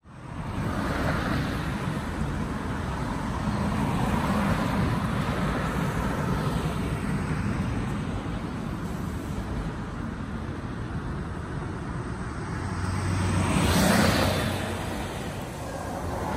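Road traffic running steadily, with vehicles passing one after another and one passing close about fourteen seconds in, the loudest moment.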